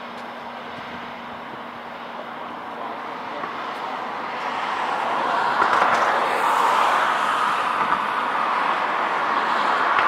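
Vehicle noise, a steady rush of engine and road sound, that grows louder from about halfway through and then holds, over a faint low engine hum early on.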